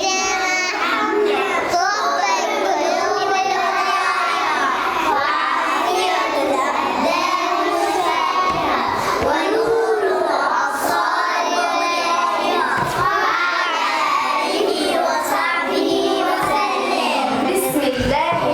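Young children singing together, many voices at once.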